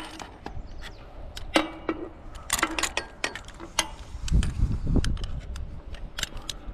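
Irregular sharp metal clicks and knocks from rigging hardware and the antenna's mast mounting plate being handled, with a brief low rumble of wind on the microphone about four and a half seconds in.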